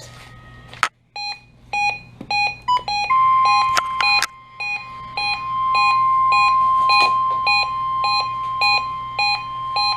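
NOAA Weather Radio required weekly test: an electronic alert beeping, about two short beeps a second. About three seconds in, the steady 1050 Hz warning alarm tone joins it and holds at one pitch.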